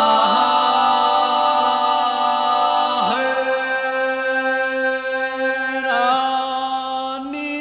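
Unaccompanied vocal chanting: several voices hold long chords over a steady low drone, shifting to a new chord about three seconds in and again about six seconds in.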